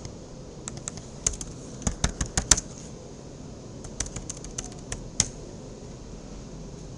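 Computer keyboard keystrokes typing a short command in two quick runs of clicks. The sharpest keystroke comes a little after five seconds in.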